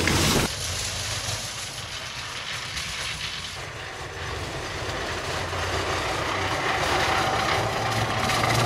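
Snow-sweeper tram (sasara broom car) running along the rails, its rotating bamboo brooms flinging snow off the track. It makes a steady rushing noise that grows louder as it approaches, with a low motor hum coming up near the end.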